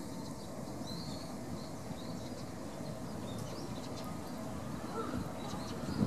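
Outdoor ambience: a steady murmur of distant voices, with small birds chirping faintly now and then.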